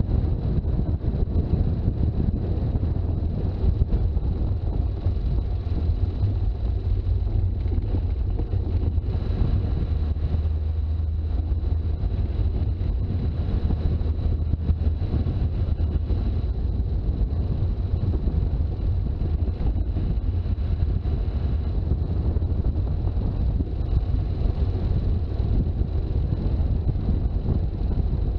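Toyota HJ61 Land Cruiser on the move: a steady low rumble of engine and road noise that holds evenly throughout.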